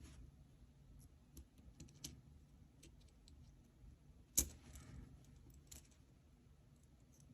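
Faint, irregular small clicks from an aluminum gear fidget toy being handled, with one sharper, louder click about four and a half seconds in.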